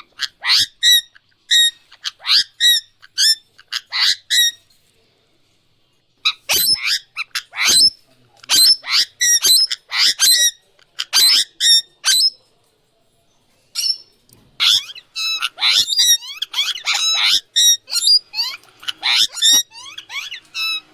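Indian ringneck parrot calling: a fast series of short, shrill squawks in three bouts, with pauses of about two seconds and a second and a half between them. The last bout is the densest.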